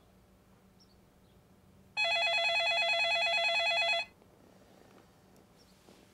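Telephone's electronic ringer sounding one ring: a fast warbling trill that starts about two seconds in and cuts off after about two seconds.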